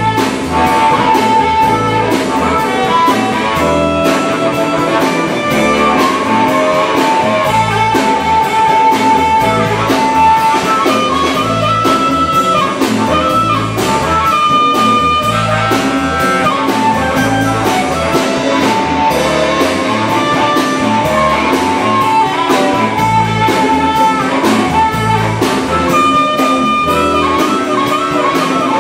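Live blues band: amplified harmonica, cupped to a vocal microphone, playing long held notes over electric guitar, electric bass and a drum kit.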